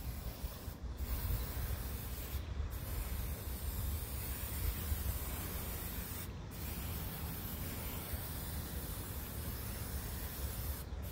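Aerosol spray can of Rust-Oleum hammer paint hissing in long sprays, broken briefly four times as the nozzle is let go.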